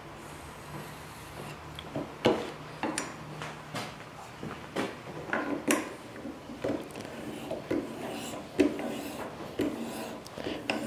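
A 1000-grit sharpening stone on the guide rod of a clamped knife-sharpening system, stroked back and forth across a steel blade's edge. It makes irregular short scraping strokes with light clicks, starting about two seconds in.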